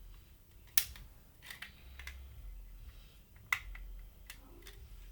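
Hard plastic clicks from a Lego butterfly knife being handled and swung open and shut: about six sharp, irregular clacks, the loudest about a second in and again at about three and a half seconds.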